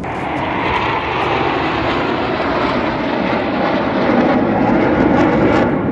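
Formation of military jets flying overhead: a steady, dense roar of jet engines that grows louder over the first second or so and stays loud.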